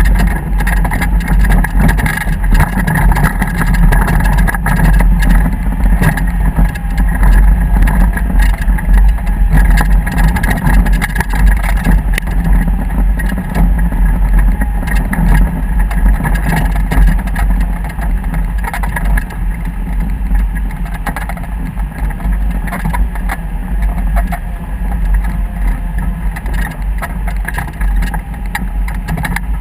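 A motor vehicle running steadily under a heavy low rumble.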